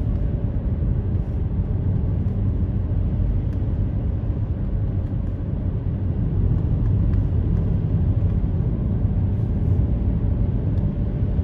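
Steady low rumble of a car's engine and tyres on the road, heard from inside the cabin while driving at speed.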